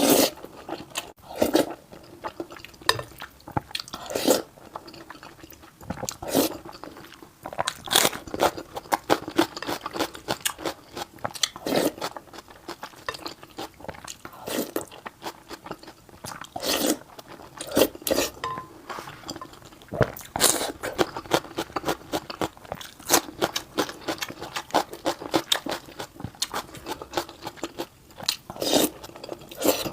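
Close-miked chewing and biting of food, with many irregular crunches and wet mouth clicks.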